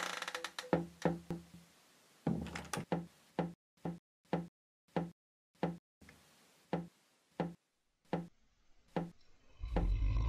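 A slow series of hollow wooden knocks, one every half second to a second, spacing out as it goes, after a quick cluster of ringing strikes at the start. A loud low rumble comes in near the end.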